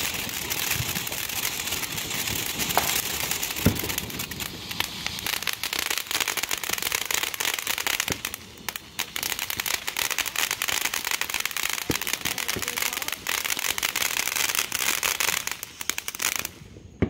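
Ground fountain fireworks hissing and crackling densely as they spray sparks, with a few sharper pops.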